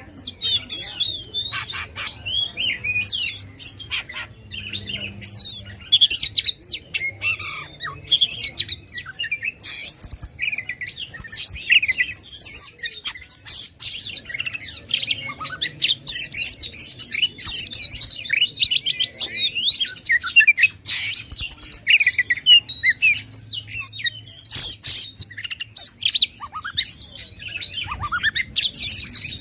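Oriental magpie-robin (kacer) singing loudly and without pause: a rapid, ever-changing run of whistled phrases, trills and sharp chattering notes.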